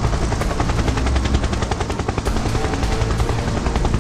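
Fast, even chopping of helicopter rotor blades with a low rumble, used as a trailer sound effect layered over action music.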